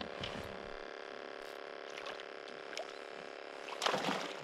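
A hooked bass splashing at the water's surface beside the boat during the fight, one short loud splash near the end, with faint light water sounds before it.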